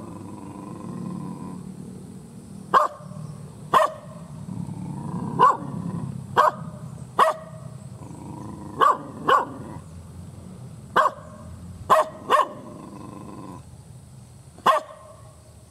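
Indonesian village dog barking angrily: about ten sharp, loud barks, singly or in quick pairs, with irregular pauses between.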